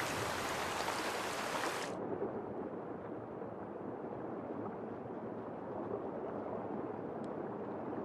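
Mountain stream water rushing, full and hissing at first. About two seconds in it turns dull and muffled, the sound of the stream heard underwater.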